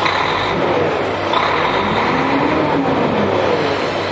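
Volvo FH16 750's 16-litre straight-six diesel idling, heard from inside the cab as a steady low engine hum.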